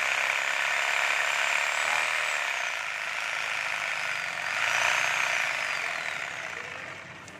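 Corded 1050 W reciprocating saw running unloaded on a test, its variable-speed control taking the motor up and down: the whine rises and falls twice, then winds down near the end.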